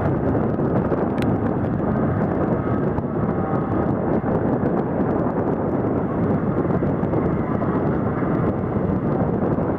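John Deere 8800 self-propelled forage harvester running steadily under load, picking up and chopping a grass swath and blowing it into a tractor-drawn trailer alongside.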